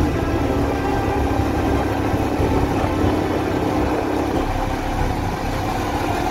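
Motorcycle engine running steadily while the bike is ridden, heard from the rider's seat with wind rushing over the microphone.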